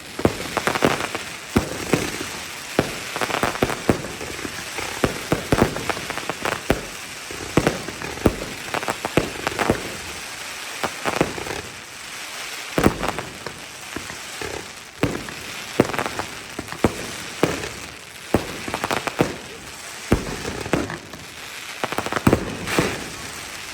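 Fireworks bursting: dense, irregular crackling and popping from crackle shells, broken by frequent louder sharp bangs.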